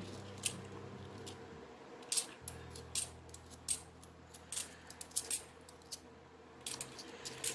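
50p coins clicking and clinking against each other as they are handled and sorted by hand, in irregular light clicks.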